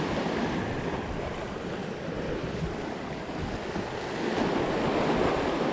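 Ocean surf washing and breaking over jetty rocks, with wind buffeting the microphone. The wash swells louder about four seconds in.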